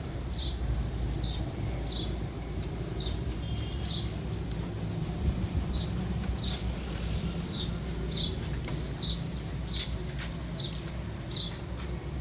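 A small bird chirping over and over, short falling chirps about one or two a second, over a steady low rumble.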